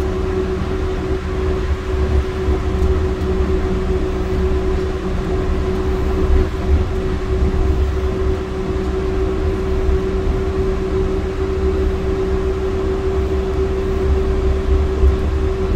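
Interior noise of a driverless Yurikamome rubber-tyred train running, heard from inside the car: a steady hum over a low rumble.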